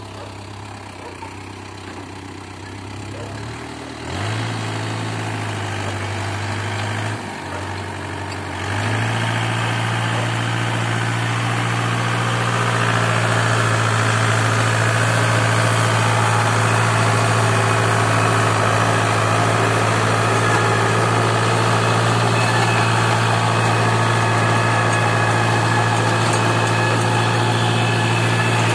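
TRX 7400 compact tractor engine running and driving a Sahtiman rotary tiller as it churns through soil. The engine hum gets louder in steps about four and nine seconds in, then holds as a steady drone under the tiller's noise.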